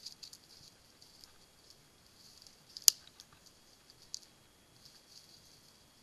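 Faint irregular ticking and rustling from a helmet-mounted camera that is not yet sitting firmly on the helmet, with one sharp click about three seconds in.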